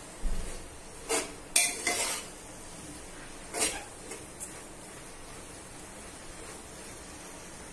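A metal spoon stirring and knocking against a metal pot: a handful of short scrapes and clinks in the first four seconds, then only a faint steady hiss.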